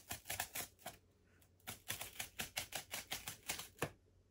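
Perforated cardboard tear strip on an Amazon mailer being ripped open by hand: a quick run of small ripping clicks, about six a second. It pauses for under a second about a second in, then carries on until shortly before the end.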